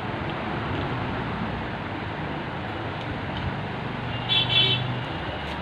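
Steady background noise of road traffic, with one brief high-pitched toot like a vehicle horn about four seconds in.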